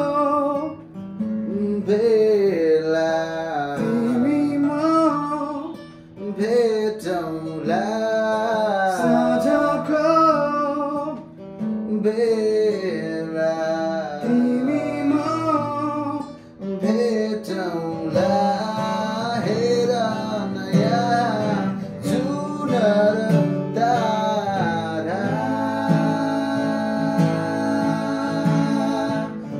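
A man singing a song in Nepali to a strummed acoustic guitar, holding a long note near the end.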